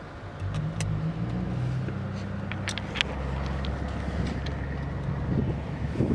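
2006 Ford F-150 pickup's engine running with a steady low hum, with a few light clicks.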